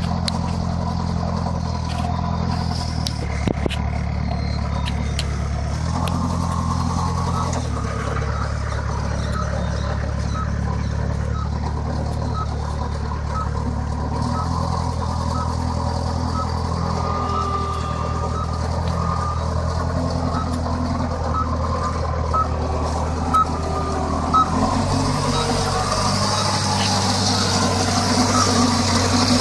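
Piggyback truck-mounted forklift's engine running, its speed changing a few times as the forklift manoeuvres. A reversing alarm beeps about once a second from about eight seconds in until about twenty-four seconds in, and a hiss comes in near the end.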